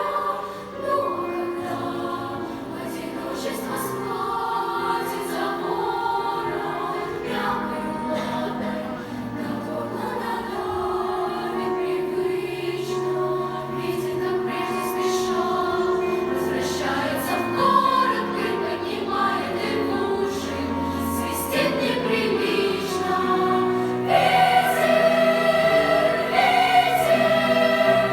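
Choir singing in several sustained parts. Near the end it swells louder, with a higher voice line coming to the fore.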